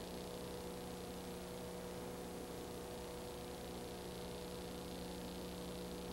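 Steady electrical hum with constant hiss and no other sound: the empty soundtrack of an old silent film transfer.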